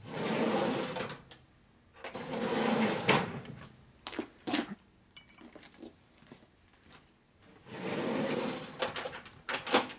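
Rummaging in a metal tool-chest drawer: three bursts of sliding and rattling tools, about a second each, with a few sharp clicks between them.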